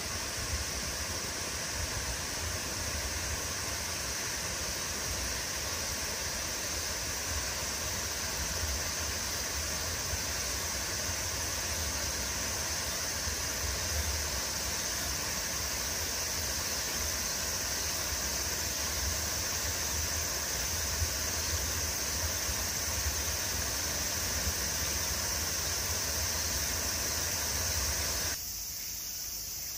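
Steady rushing of running water in an outdoor enclosure's pool, with a low, unsteady rumble underneath.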